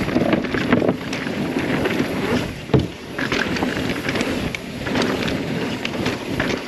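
Mountain bike descending a downhill dirt trail: wind rushing over the microphone, tyres on dirt and a steady rattle of clicks from the bike over rough ground, with one sharp knock about three seconds in.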